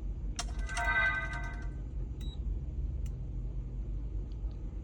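A short electronic chime of a few quick, ringing notes about half a second in, lasting just over a second, followed by two faint clicks, over a steady low hum.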